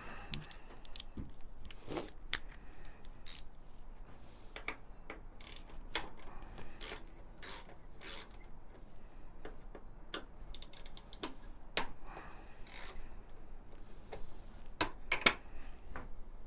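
Small hand ratchet with a 4 mm Allen bit clicking in irregular short runs while backing out the fuel-tank mounting bolts, with light metal tool clinks.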